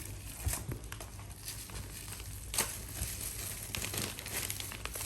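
Gift packaging crinkling and rustling as presents are handled and unwrapped, with scattered crackles and one sharper crackle about halfway through.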